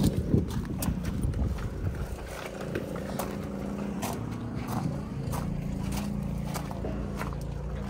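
Footsteps crunching on gravel in irregular, scattered steps, over a steady low engine hum from a vehicle or machine running nearby.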